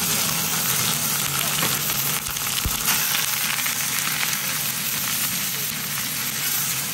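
Beaten egg frying in a hot oiled pan: a steady sizzle and crackle, with one dull knock near the middle.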